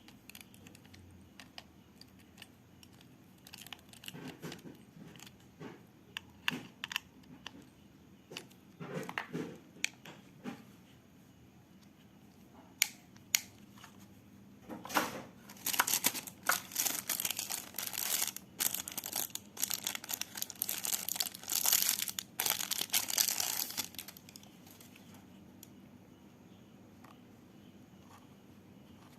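Plastic packaging being handled and crinkled: scattered clicks and knocks at first, then a long stretch of dense crinkling and rustling in the second half before it stops.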